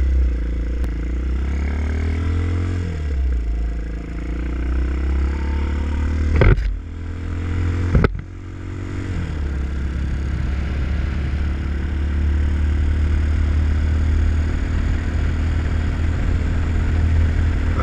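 RPS Hawk 250 dual-sport motorcycle's single-cylinder engine pulling away, rising in pitch over the first few seconds, then running steadily at road speed, with wind rumble on the microphone. Two loud knocks come about a second and a half apart midway through.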